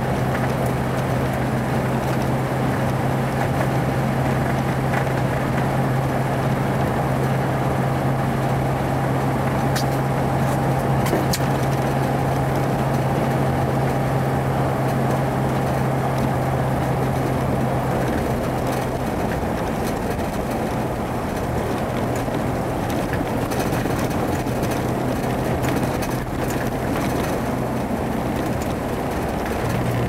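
Jeep driving on a snow-packed road, heard from inside the cabin: a steady engine hum over tyre and road noise. The engine note drops away about two-thirds of the way through and picks up again near the end.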